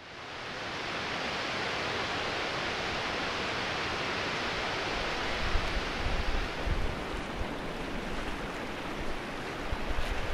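Steady rushing of falling water from waterfalls, fading in from silence over the first second. From about halfway, an irregular low rumbling joins.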